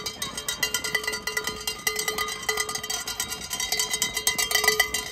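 A cowbell rung rapidly and steadily, several clanks a second on the same pitch, in cheering for the runners.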